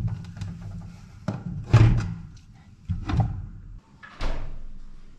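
Refrigerator door being opened and shut, with several knocks and clatters about a second apart as a bottle is taken from the shelves, over a low hum that stops a little before the end.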